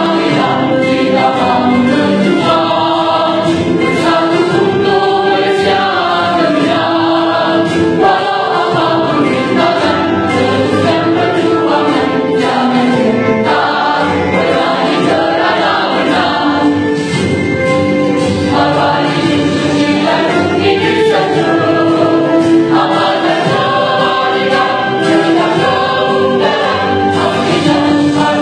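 A mixed choir of women and men singing together, continuously through held notes and moving melody lines.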